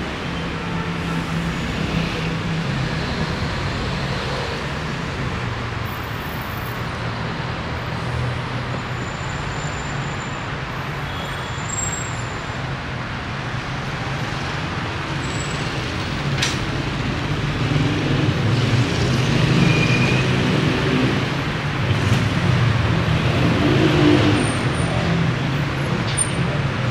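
Street traffic: vehicle engines running with a steady low hum and the hiss of passing traffic, growing louder in the second half as vehicles pass close by.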